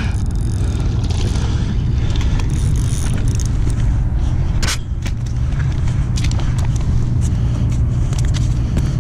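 Steady low rumble of wind buffeting a body-worn action camera's microphone, with scattered small clicks and one sharper knock about halfway through.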